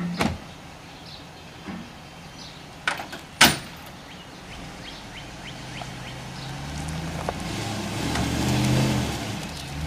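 Dodge truck engine running, growing louder from about halfway through, peaking near the end and then easing off. A few sharp knocks come before it, the loudest about three and a half seconds in.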